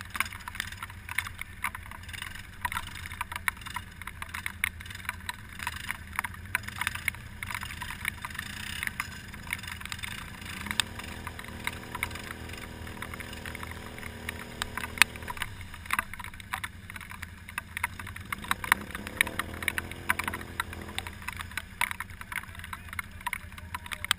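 Quad-bike engines in a mud hole: a low steady idle throughout, with an ATV engine revving up and holding twice, a longer rev from about eleven seconds in and a shorter one near nineteen seconds, as a quad pushes through the water. A constant light crackle of clicks runs underneath.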